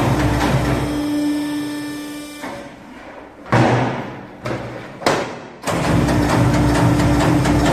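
Nematec meat dicer running with rapid, rhythmic cutting, then winding down to a steady hum and stopping. Three loud thuds follow as a piece of raw meat is loaded into the feed chamber, and the dicer starts cutting again a little before the end.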